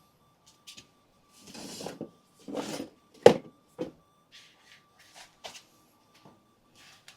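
Plastic GreenStalk planter tiers being handled and fitted together: two brief scraping rubs, then a sharp knock about three seconds in, followed by a scattering of lighter taps and clicks.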